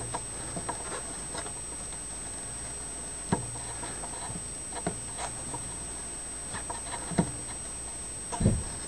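Sparse faint clicks and light taps of a soldering iron tip and hands working plastic motorcycle fairing, over a steady low hum and hiss. A short dull thump near the end.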